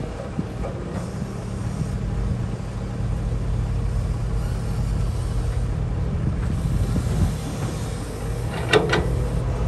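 Cat 320C excavator's diesel engine working steadily under load, getting louder a couple of seconds in as the arm lifts and swings a full bucket. Near the end comes a short clatter of dirt and clods dropping from the bucket into the steel dump truck bed.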